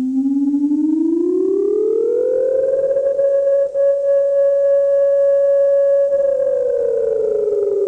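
Israeli civil defense siren wailing: its pitch rises for about two seconds, holds high for several seconds, then begins to fall near the end. This rising-and-falling wail is the alarm that warns of an incoming missile attack.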